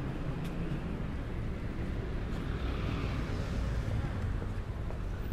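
Steady low rumble of city street traffic, heard while riding along the street.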